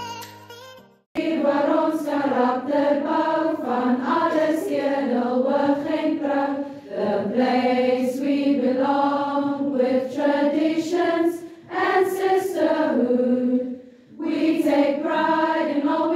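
A group of women singing a chant-like song together, unaccompanied, in phrases broken by short pauses. The first second holds the tail of background music, which cuts off abruptly before the singing starts.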